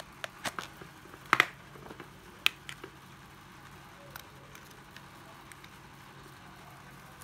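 Sharp clicks and knocks from a 12V cordless drill-driver being handled, several in the first three seconds with two louder knocks, then only a faint steady hum.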